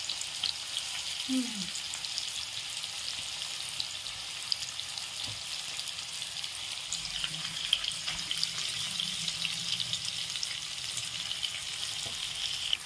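Fish pieces coated in a spiced gram-flour (besan) batter sizzling steadily in hot oil in a frying pan: a high, even hiss with scattered small pops and crackles.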